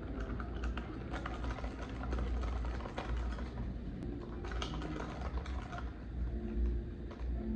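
Ice cubes clicking and rattling in a plastic cup of iced latte as a straw stirs it, in short irregular clusters over a steady low background hum.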